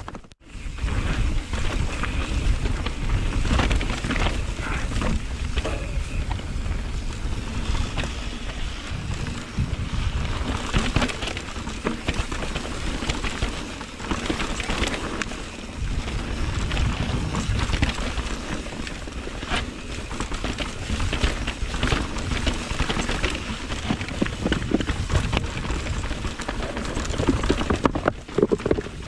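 Mountain bike riding down a rocky trail: wind buffets the action camera's microphone with a steady low rumble, while the tyres and bike clatter and knock over stones.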